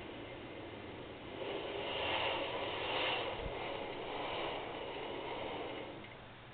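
Shimano Nexus 8 internal gear hub turning with the spinning rear wheel and chain, giving a whooshing sound with some rubbing friction. It swells louder after about a second and a half and dies down near the end. The owner hears it as a fault but cannot find its cause.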